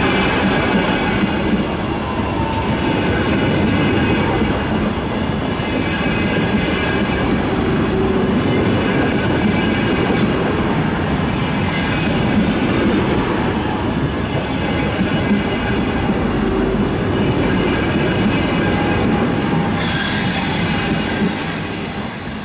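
Frecciargento high-speed electric train rolling past and away along a curve, its wheels squealing in several steady high tones over the running noise. Sharper screeches come about ten, twelve and twenty seconds in, and the sound fades near the end.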